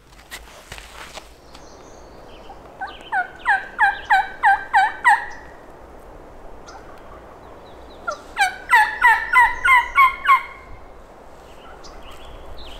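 Turkey yelping: two series of about eight sharp, falling notes, a little over three a second. The two series come about five seconds apart.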